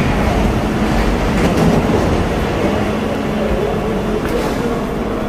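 London Underground tube train standing at the platform with its equipment running: a loud, steady rumble with a low hum.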